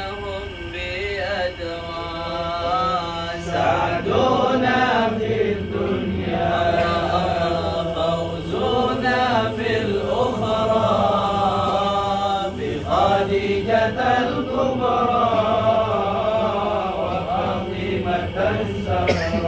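A group of men chanting sholawat together, a devotional chant sung in long melodic phrases by many voices at once.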